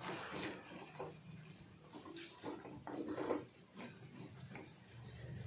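Wooden spatula stirring a thick crab and potato curry in a clay pot: irregular soft scrapes and knocks against the earthenware, with wet sounds of the gravy. The curry is almost cooked.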